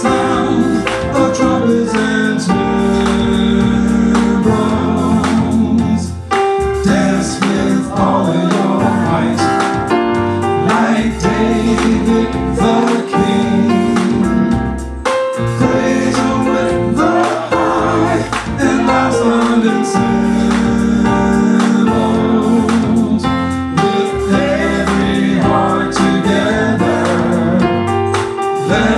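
Gospel praise-and-worship music: voices singing over a band with sustained bass notes.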